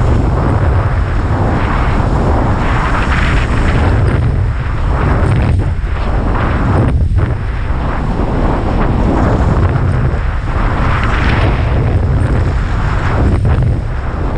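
Strong wind buffeting the microphone: a loud, continuous rumbling rush, heaviest at the low end.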